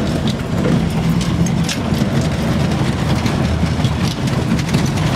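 Off-road 4x4 vehicle engine running steadily as it drives over a rough gravel track, with scattered rattles and knocks from the bumpy ride.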